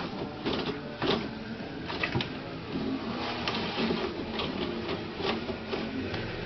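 A toilet paper roll being pulled and spun off its holder, the paper rustling and the roll rattling, with irregular sharp crackles and clicks.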